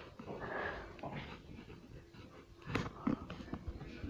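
Faint rustling of the phone being handled against fabric, then a few dull thumps near the end as it is knocked or gripped.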